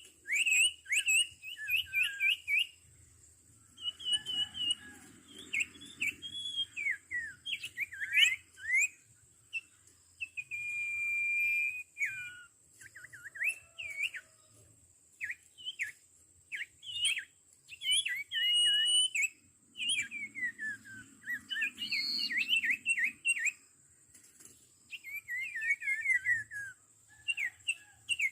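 Sirtu birds calling: quick bursts of sharp, whistled notes that slide downward, repeated over and over with short pauses. A steady high-pitched whine runs underneath.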